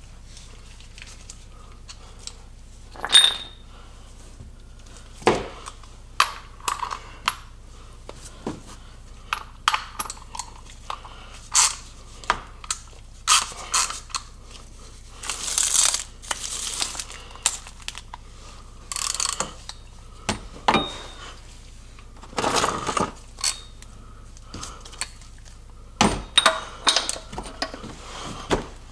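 Scattered metallic clicks and clanks of hand tools and fasteners being handled, with a few longer scraping noises in between.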